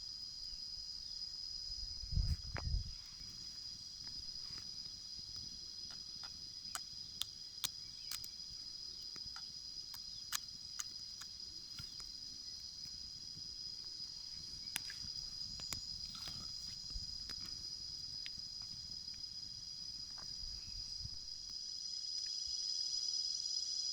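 Steady, high-pitched insect chorus chirring without a break. Scattered light clicks come through, mostly in the middle, and a low thump comes about two seconds in.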